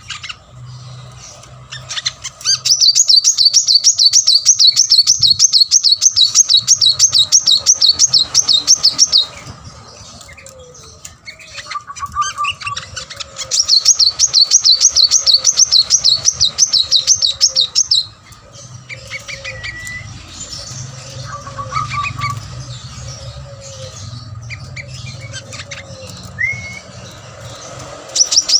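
A caged sunbird (kolibri manggar) sings vigorously, in two long bursts of rapid, high, trilling notes, each lasting several seconds. Between and after the bursts come softer single chirps.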